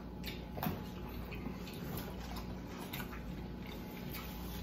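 People eating a seafood boil of clams, mussels and corn on the cob: quiet, wet chewing and small mouth clicks and smacks scattered throughout, over a low steady hum.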